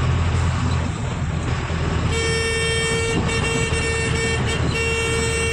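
Truck engine running steadily inside the cab; about two seconds in a vehicle horn sounds three times, each blast about a second long at one steady pitch.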